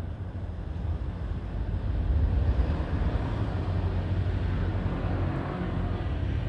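Strong wind buffeting the microphone, a gusty low rumble that swells about two seconds in.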